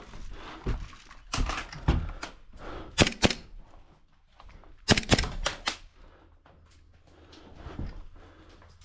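Airsoft replica shots: two sharp cracks about three seconds in, then a quick string of shots about five seconds in, among lower thumps and rustling of the player moving.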